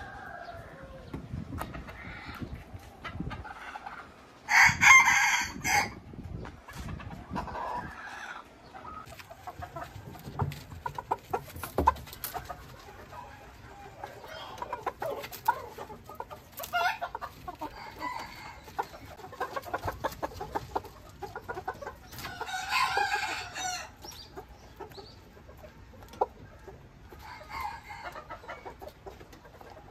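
Ko Shamo roosters crowing twice, once about four and a half seconds in and again about 22 seconds in, each crow about a second and a half long. Between the crows there is softer clucking and a run of short sharp taps from beaks pecking at feed.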